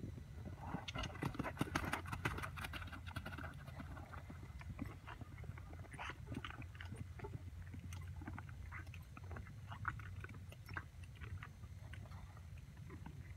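Palomino horse's hoofbeats on the arena dirt as it canters past. They are loudest and closest about one to three seconds in, then fainter and scattered as it moves away toward the jumps.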